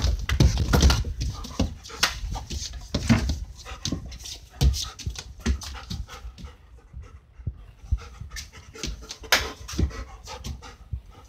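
German Shepherd panting in quick breaths, louder during the first few seconds.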